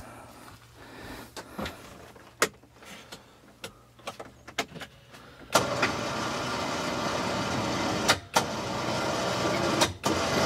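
Electric winch on a Polaris UTV winding in its cable under load as it lifts a rooftop tent's lid. A few light clicks come first. The winch motor starts about halfway in and runs steadily, cutting out briefly twice near the end.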